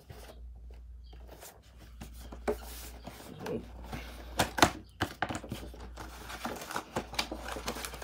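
Action-figure packaging being opened and handled: cardboard and plastic rustling and crinkling, with a few sharp clicks and knocks.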